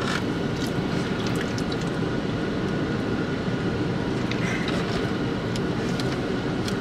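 Steady low hum inside a car, from its idling engine and air-conditioning fan, with a few faint clicks from handling food containers.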